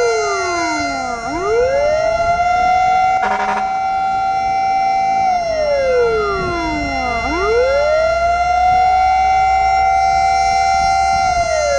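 Fire truck siren wailing: the pitch falls over about two seconds, sweeps back up and holds, twice, over a steady siren tone and a low rumble. A short blast sounds about three seconds in.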